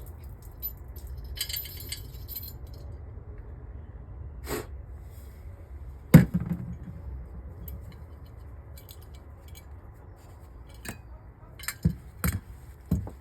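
Small metal carburettor parts and tools clinking and knocking on a workbench as the carburettor is taken apart. There is one loud clink about six seconds in and a few more sharp knocks near the end.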